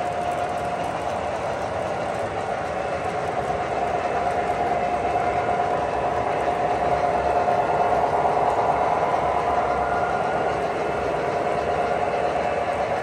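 O gauge model freight cars rolling past on a curve, their metal wheels on the rails making a steady rolling rumble with a steady hum, a little louder around the middle.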